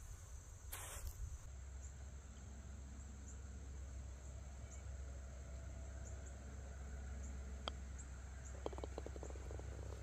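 Golf putter striking the ball with a single sharp click about three-quarters of the way in, followed about a second later by a quick rattle of clicks as the ball drops into the cup for a made par putt. Under it, a low steady outdoor rumble with faint, scattered high chirps.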